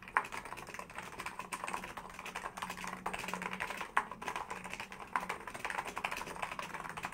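Fast, continuous typing on a stock NiZ Micro 82 keyboard with electro-capacitive switches: a dense, even run of light key presses.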